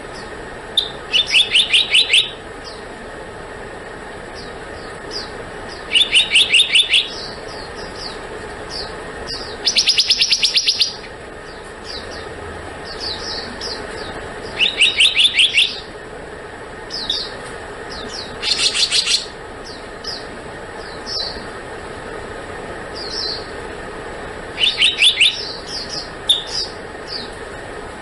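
Black-naped monarch calling: about six quick runs of sharp, evenly repeated notes, each run about a second long and coming every few seconds, with short single notes scattered between them over a steady background hiss.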